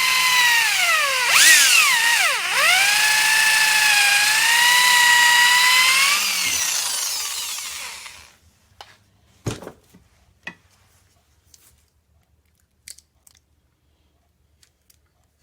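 Electric drill boring a hole through a golf ball: a steady motor whine whose pitch dips twice as the bit bites. The drill then winds down and stops about eight seconds in, followed by a few light knocks and clicks.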